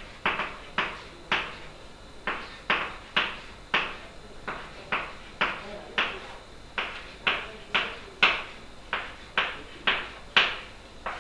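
Chalk writing on a chalkboard: a string of short, sharp taps and strokes, about two a second and unevenly spaced, as short symbols are chalked out one after another.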